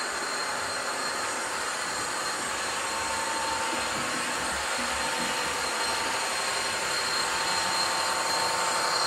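Model train running on the layout's track: the steady whir of its electric motor and wheels on the rails, growing louder in the last few seconds as the red diesel locomotive and its coaches come closer.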